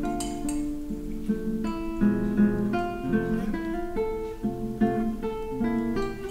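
Background music: a plucked acoustic guitar playing a steady run of notes.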